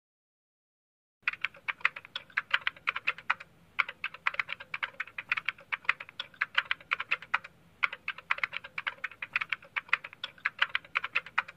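Computer keyboard typing: a fast run of sharp keystroke clicks, several a second, starting after about a second of silence and broken by two short pauses.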